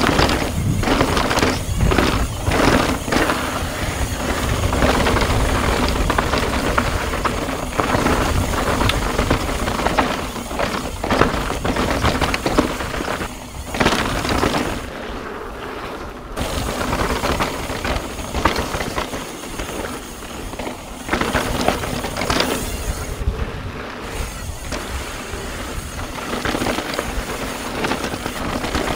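Mountain bike ridden fast down a rough dirt trail: wind buffeting the microphone, with the bike's clatter and knocks over rocks and ruts, mixed with music.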